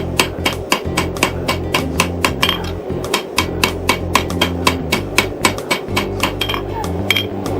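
Hand hammer striking steel on an anvil in a quick steady rhythm, about four blows a second, forging a pipe wrench jaw into a knife blade. Music plays underneath.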